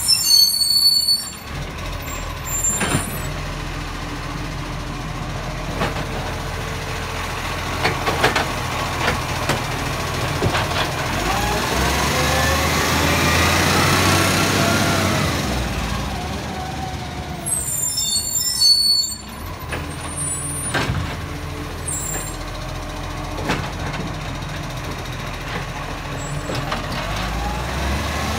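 Iveco side-loading garbage truck idling on its diesel engine, with a sharp air-brake hiss near the start and again about two-thirds through. In the middle its hydraulic lift arm runs with a whine that rises and falls in pitch while emptying a wheelie bin, amid clanks and knocks.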